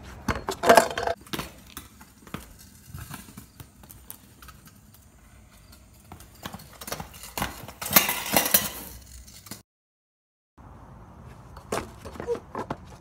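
Knocks and clatters of a kick scooter's deck and wheels striking pavement during tricks and a fall. The loudest clusters come about a second in and again around eight seconds, with a second of dead silence near ten seconds.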